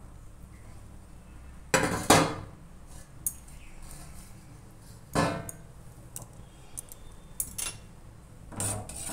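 Kitchen utensils clanking against a stainless steel saucepan: two loud clanks close together about two seconds in and another about five seconds in, over a steady low hum.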